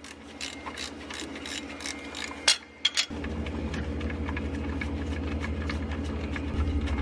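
Socket ratchet clicking in quick repeated strokes as the 16 mm bolt holding a BMW E46's AC belt tensioner is undone. A low steady hum comes in about three seconds in.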